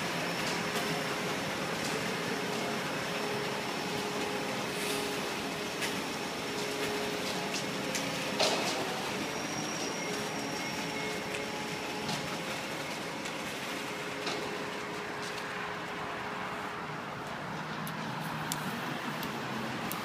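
A steady engine hum mixed with road traffic noise, with a single knock about eight and a half seconds in.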